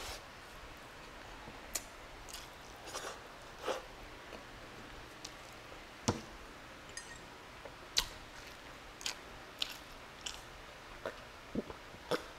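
Close-miked chewing of a mouthful of rice: scattered soft, wet clicks and smacks from the mouth, about one every half second to a second.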